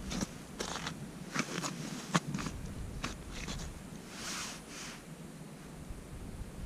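About a dozen irregular light crunches and clicks, with two brief rustles about four seconds in: handling noise from an angler jigging a short winter rod over a hole in crusted ice.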